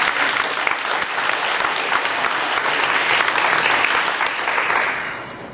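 Audience clapping in a meeting room, a dense patter of many hands that dies away about five seconds in.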